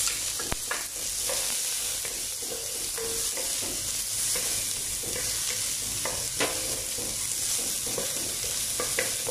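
Chopped shallots and minced garlic sizzling in olive oil in a nonstick pan. A wooden spatula stirs them, with short scrapes and taps against the pan over a steady high hiss.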